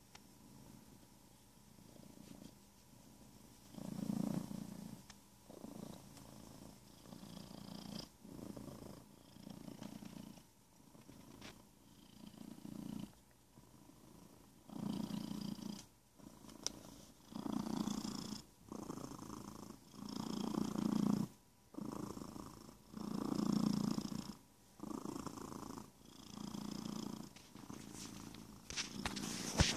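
Domestic cat purring steadily, the purr swelling and fading with each breath about once every second and a half, faint at first and stronger from about halfway through. A few sharp clicks come near the end.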